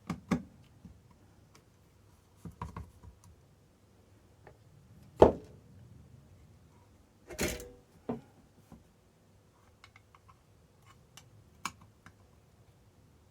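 Scattered small clicks and taps of torch parts and hand tools being handled on a workbench. One sharp knock comes about five seconds in, and a short scraping rustle follows a couple of seconds later.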